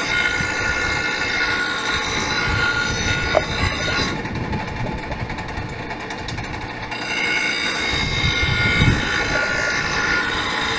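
Electric grinder sharpening a steel lawn mower blade: a steady motor whine with rough metal-on-stone grinding. The high grinding hiss drops away for about three seconds in the middle, then comes back.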